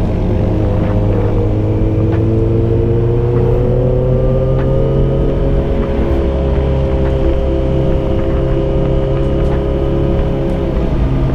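Yamaha XJ6's 600 cc inline-four engine through a Dominator GP full exhaust with dB killer, running under way on the road. The engine note rises slowly over the first few seconds, holds steady, then drops right at the end.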